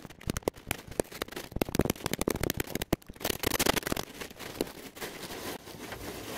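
Tyvek wrap sheet crinkling and crackling as it is handled and wrapped around a piece of the blind, with many irregular sharp crackles and rustling.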